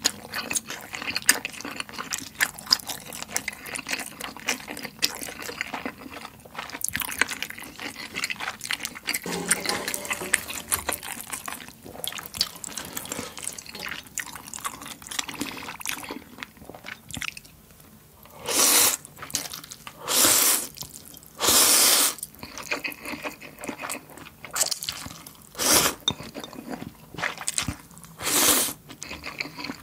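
Close-miked eating sounds: wet chewing clicks and smacks for a little over half the time. After that, about five loud slurps of spicy ramen noodles and broth.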